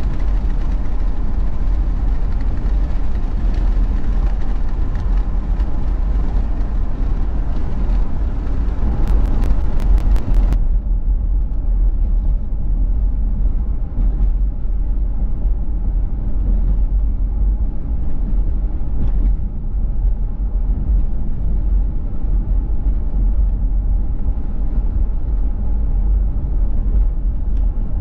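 Steady road and tyre noise with a deep rumble from a car driving at speed. About ten seconds in comes a short run of sharp clicks, after which the higher hiss falls away suddenly.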